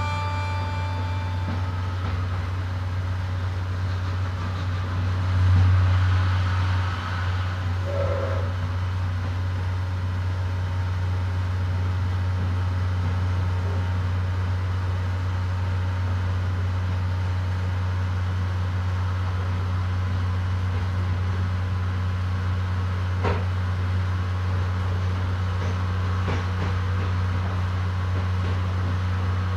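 Steady low drone of the Suhafu 14 passenger car's underfloor DMF15HZ-G diesel generator engine, heard from the car's end deck, which is not soundproofed and is quite noisy, as the train rolls along. The drone swells briefly about six seconds in, and two sharp clicks come near the end. The last notes of the onboard chime fade out at the very start.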